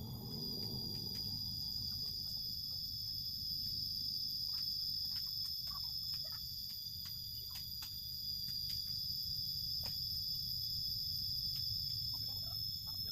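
A steady high-pitched insect whine, held unbroken on one pitch, over a low rumble in the background.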